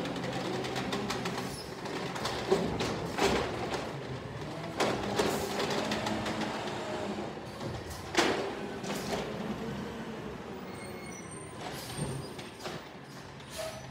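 Natural-gas-powered automated side-loader garbage truck running steadily while its hydraulic arm lifts a wheeled trash cart, dumps it and sets it down. Several sharp clanks and bangs sound over the engine as the cart and arm knock against the truck.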